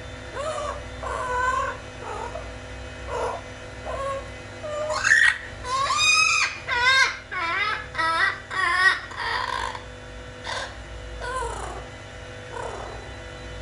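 Blue-fronted Amazon parrot calling: soft, whining calls that bend in pitch, then a run of loud, quavering calls around the middle, then softer calls again.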